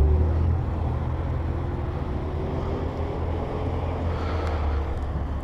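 Motorcycle engine idling with a steady low rumble. Further off, a BMW M6's engine faintly rises and falls in pitch.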